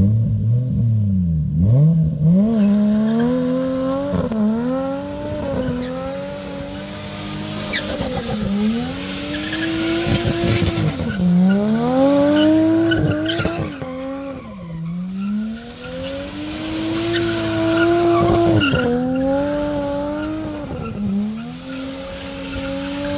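Nissan Skyline GTS-T's turbocharged straight-six revving hard and dropping back over and over while it spins donuts. The rear tyres squeal and skid on the asphalt.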